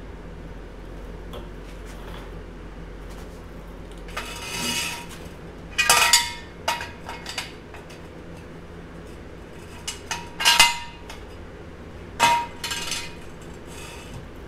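Several separate metal clanks and clinks, each ringing briefly: steel tools or parts being handled and set down. The loudest come about six and about ten seconds in. A low steady hum runs underneath.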